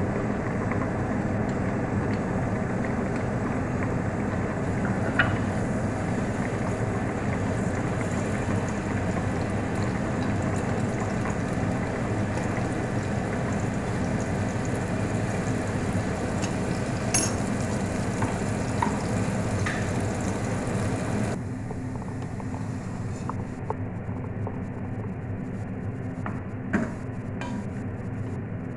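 Steady noise of cooking on a stove, with a few light clinks of utensils; the higher hiss drops away about two-thirds of the way through.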